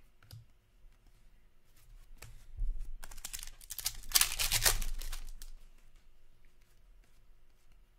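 Cardboard trading cards being handled, slid and shuffled through the hands: scattered small clicks, then a dense rustling, scraping burst from about two and a half to five seconds in, then a few quieter ticks.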